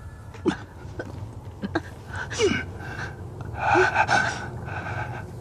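A gravely wounded man gasping and groaning with short, sharp, pained breaths, several times over, the breath catching hardest about four seconds in.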